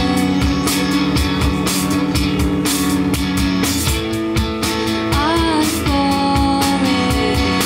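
Live rock band playing: electric guitar chords over a drum kit's steady beat, with a woman singing.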